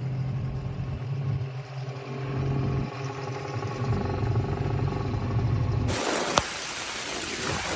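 A vehicle engine running with a steady low hum. About six seconds in it cuts off abruptly to a steady rushing noise of water, with a single click soon after.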